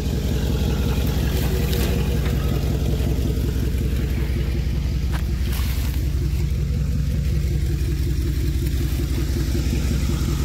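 Pickup truck engine idling steadily, a constant low pulsing run.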